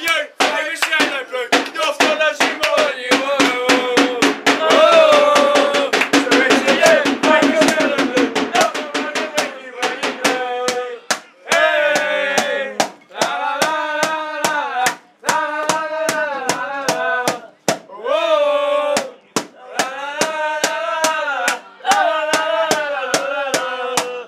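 Singing over a steady drum beat: a dense sung passage at first, then short repeated phrases with brief gaps, the drum keeping time throughout.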